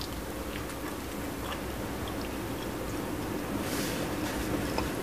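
A person biting into and chewing a mouthful of oven-baked, butter-roasted chicken drumstick, with faint soft ticks over a steady low background hum. There is a brief hiss a little before the end.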